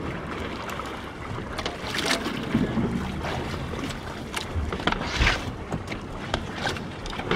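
Wind blowing across the microphone over water sloshing against the stern of a boat, with a few brief louder gusts or sloshes.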